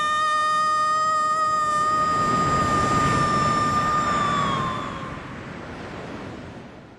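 A long, held high tone that sags slightly in pitch and fades about four and a half seconds in, over a rushing noise that swells and then dies away near the end.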